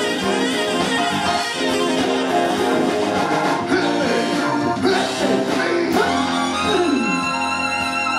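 A live rock band plays with drums, bass, guitar and keyboards. About six and a half seconds in, a downward slide in pitch leads into held high notes.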